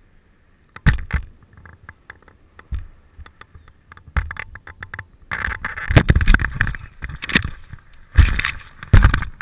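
A parachutist landing under a round military canopy, heard close on the helmet microphone: scattered knocks and rustles at first, then loud wind and rustling from about halfway. Near the end come two heavy thumps as he hits the ground and rolls through the grass.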